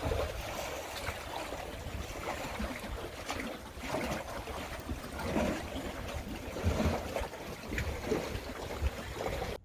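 Wind buffeting the camera's microphone, a rough rumbling noise that swells and eases every second or so, then cuts off abruptly at the end.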